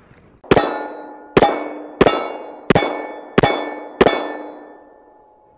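Six .45 ACP shots from a Springfield Armory 1911 TRP pistol in quick, even succession, each answered by the clear ring of a struck steel target plate. The ringing of each hit runs on into the next shot and dies away about a second after the last.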